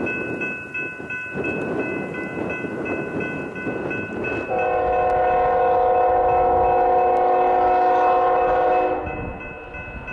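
An approaching Union Pacific freight locomotive sounds one long horn blast, starting about halfway through and lasting some four seconds, over the rumble of the train. A bell dings quickly, about three times a second, throughout.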